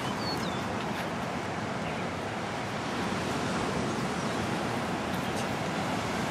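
Steady rushing outdoor noise from wind on the microphone, with a few faint short chirps in the first second.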